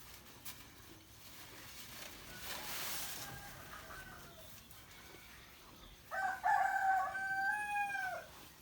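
Roosters crowing: a fainter, more distant crow about two and a half seconds in, then a loud, close crow lasting about two seconds near the end that falls off in pitch as it ends.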